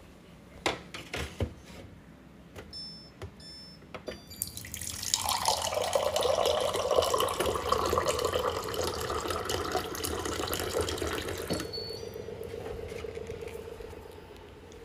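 A countertop water dispenser beeps twice at its touch panel, then cold water pours from its spout into a ceramic mug for about seven seconds before stopping with another short beep. A few light knocks come before the beeps, and a steady low hum goes on after the flow stops.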